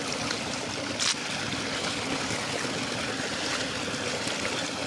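Tubewell water gushing steadily from a wide discharge pipe and splashing into a concrete channel, with one brief click about a second in.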